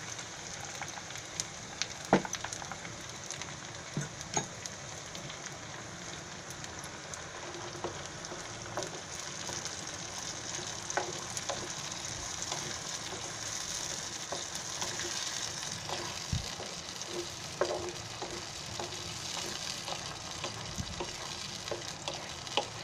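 Onions and ginger-garlic paste frying in butter in a non-stick pan, sizzling steadily as tomato puree is poured in and stirred with a wooden spatula. Scattered light knocks of the spatula against the pan come through the sizzle.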